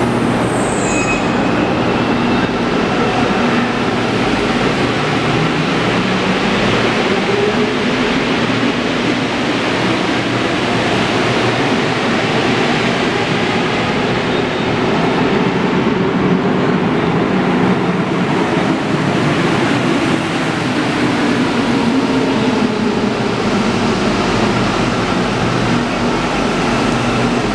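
Santiago Metro train running at the platform: a steady loud rumble, with a motor whine that climbs in pitch and later falls away.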